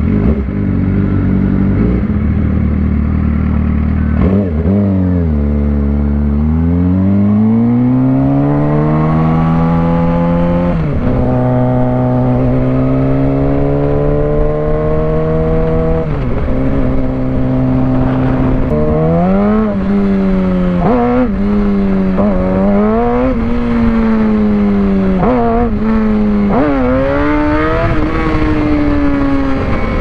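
2006 Suzuki GSX-R600 sportbike's inline-four engine under way. Its pitch climbs steadily for several seconds as the bike accelerates, drops at a gear change, holds, then dips and recovers many times in quick succession through the last ten seconds.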